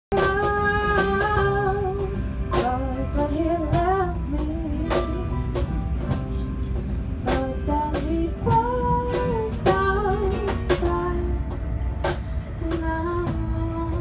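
A woman singing a melody into a microphone over strummed acoustic guitars, with the low steady rumble of the moving train carriage underneath.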